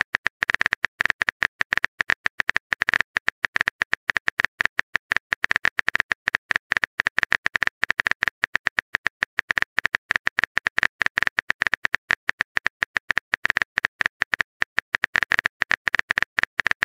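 Keyboard typing sound effect of a texting-story app: a quick, uneven run of sharp clicks, several a second, one per letter as a long message is typed out.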